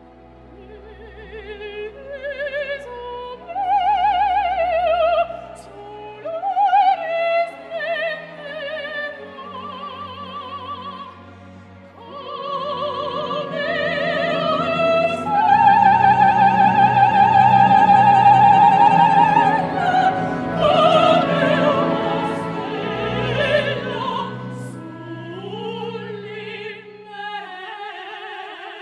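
Operatic soprano singing with wide vibrato over orchestral accompaniment, the line climbing to a long held high note about halfway through, the loudest moment. A second woman's voice joins near the end.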